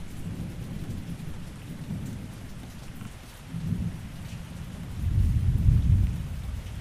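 Thunderstorm: steady rain with low rolling thunder that swells and fades, loudest about five seconds in.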